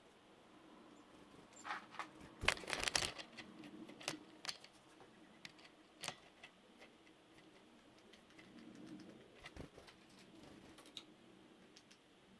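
Scattered light clicks and taps, bunched together about two to three seconds in, then single ones spread out, over a faint low hum.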